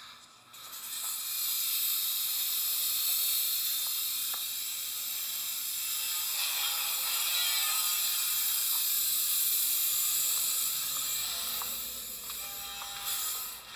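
A steady, high hiss that starts about half a second in, holds for about twelve seconds and eases off near the end.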